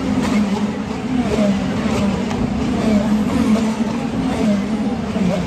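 IndyCar race cars' 2.2-litre twin-turbo V6 engines running hard as the cars pass along the street circuit. It is a continuous, steady engine noise with short rising notes from cars accelerating.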